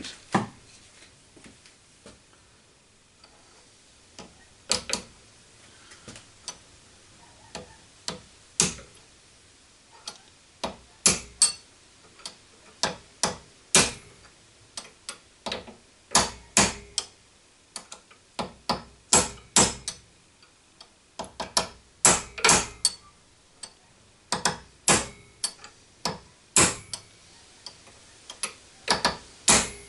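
A hammer tapping a drift to drive a taper roller bearing's inner race down onto a mill spindle through a slotted old bearing race. The taps are sharp and metallic: a few spread out at first, then coming in quick runs of several at a time.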